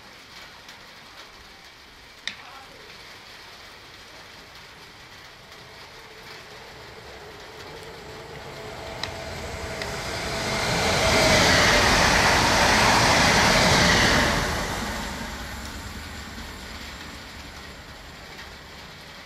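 Electric multiple unit passing through a station: a rushing rail noise builds over several seconds, stays loud for about four seconds as the train goes by, then fades away.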